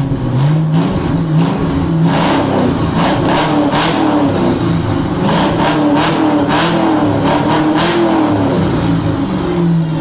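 Chevrolet C5 Corvette's 5.7-litre V8 running loud with the exhaust removed behind the catalytic converters, no mufflers. Its pitch climbs as it is revved at the start, then wavers with repeated throttle blips, with sharp cracks among them.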